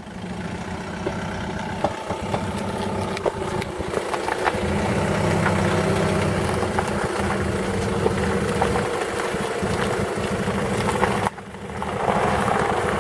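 SsangYong Kyron SUV's engine running steadily as it is driven slowly forward, a little louder from about four seconds in, with a few faint clicks; the knock suspected in the rear left wheel is not heard.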